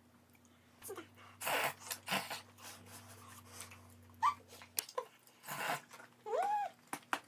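A cat meowing: a short rising cry about four seconds in and a longer meow that rises and falls near the end, with two short puffs of noise earlier.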